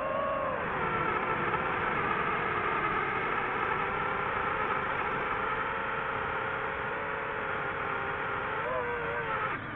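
FPV drone's motors and propellers whining steadily in flight. The pitch wavers and dips near the end as the throttle changes.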